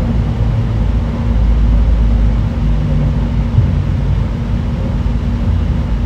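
Cabin noise of an N700S Tokaido Shinkansen train under way: a steady low rumble with a faint steady hum over it.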